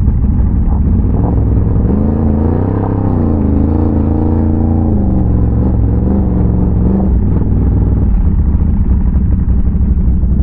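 Big-bore Can-Am Renegade ATV's V-twin engine running loud under way. The revs rise and fall a few times in the middle, then settle back to a steady low rumble.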